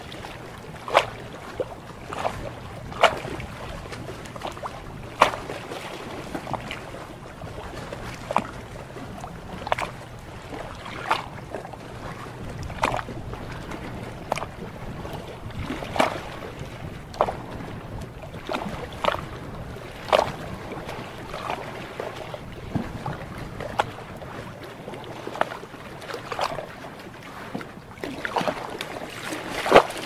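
Small waves lapping and slapping against something solid, a hull or pilings: sharp, irregular splashes about once or twice a second over a steady wash of water.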